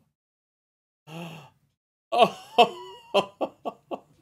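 A man laughing in delight: a short voiced sound about a second in, then a run of laughs that tail off.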